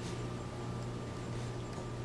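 Quiet room tone: a steady low hum with a faint thin whine above it, and no distinct knocks or clinks.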